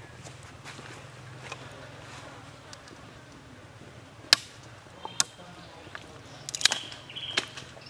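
Quiet forest ambience with a faint low hum, broken by a few sharp clicks or taps: one loud one about four seconds in, another a second later, and a small cluster near the end, along with two brief high chirps.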